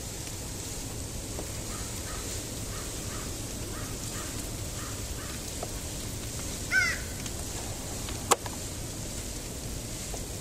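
Steady outdoor background noise with a row of faint short calls, then one louder, higher call about two-thirds of the way through, followed shortly by a single sharp click.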